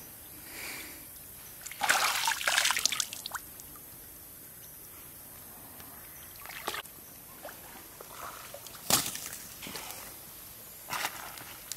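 Shallow stream water splashing and sloshing in short bursts, the loudest cluster about two seconds in, with a few smaller splashes later.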